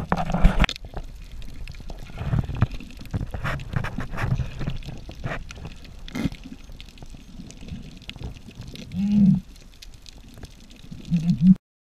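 Water sloshing and splashing around a diver's camera, with irregular clicks and low knocks, and two short, louder low-pitched sounds about nine and eleven seconds in. The sound cuts off abruptly just before the end.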